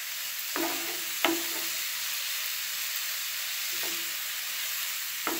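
Chopped vegetables sizzling in a nonstick frying pan while a flat spatula stirs them. The spatula knocks and scrapes against the pan four times, each with a brief ring.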